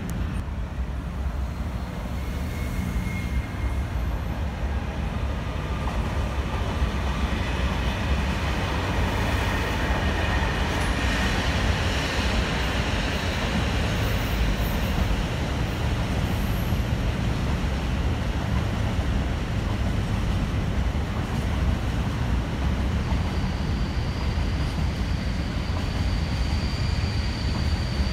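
Freight train of container and tank wagons rolling past, a steady rumble of wheels on rail. A few faint high ringing tones come through around the middle, and a thin steady high tone comes in near the end.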